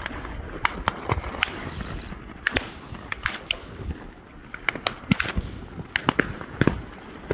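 An irregular run of sharp cracks, about two or three a second, the loudest around five and six and a half seconds in.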